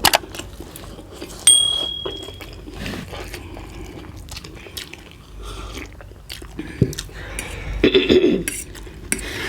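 Chewing and biting into chicken momos (steamed dumplings), with irregular small clicks and mouth noises. About a second and a half in, a sharp clink rings briefly with a high tone.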